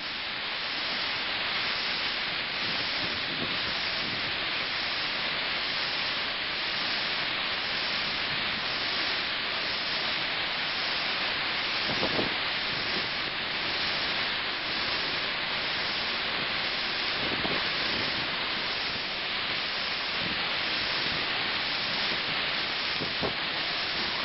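Steady hissing rush of cyclone-force wind and driving rain, with a couple of short louder moments.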